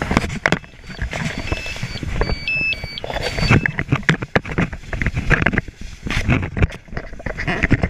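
Firefighters' turnout coats and gear brushing and knocking against a helmet-mounted camera as they crowd past each other, with repeated clatter and rustling.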